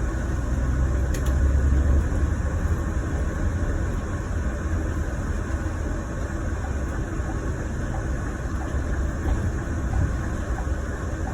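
Scania Irizar i6 coach's diesel engine running, heard from inside the passenger cabin: a steady low rumble, a little louder in the first two seconds.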